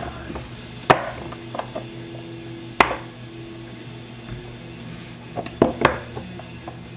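Trading-card packaging being handled and opened on a table: sharp clicks and knocks about a second in, near three seconds, and a quick cluster near the end, with soft rustling between.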